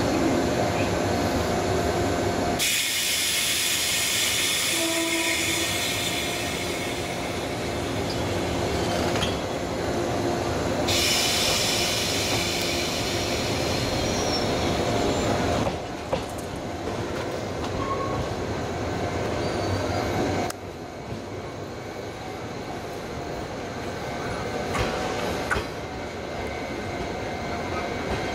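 JR East 189 series electric multiple unit at a station platform, its onboard equipment humming steadily. A loud hiss runs for several seconds from about three seconds in. Later the train is heard pulling away, the sound dropping in steps.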